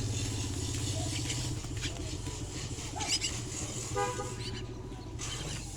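A motor vehicle engine running past and fading away, with a short horn toot about four seconds in and a few faint high chirps just before it.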